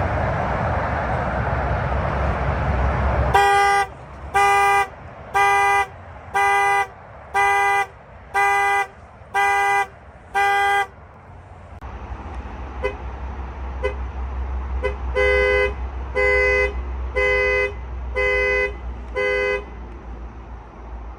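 Car horn pulsing in a panic-alarm pattern, about one honk a second: eight honks, then a gap, then a few faint honks followed by five loud ones. A loud rushing noise comes before the first honk, and a low rumble runs under the later honks.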